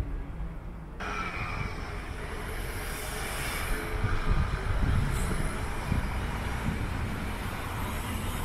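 A steady outdoor rushing noise with an uneven low rumble, starting abruptly about a second in.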